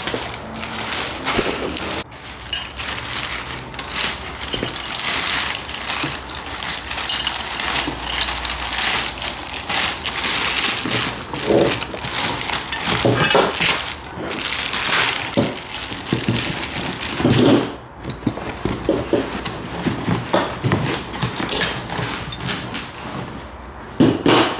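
Continuous handling noise from turbo hardware being test-fitted: rustling and scraping with frequent small knocks and clinks of metal parts, such as wastegates and V-band clamps, set against the manifold.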